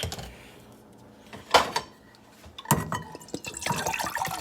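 A few hard knocks of a pot and bottle being handled, then a sports drink splashing as it is poured into the pot from about three and a half seconds in.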